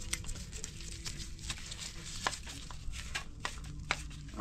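Irregular small clicks and taps of hand tools on the engine's valve gear as a rocker adjusting screw is wound in until it bottoms out, over a low steady hum.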